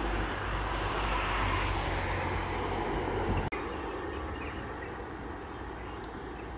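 Steady city street traffic: a continuous rumble of passing vehicles. It drops abruptly to a slightly quieter level about halfway through.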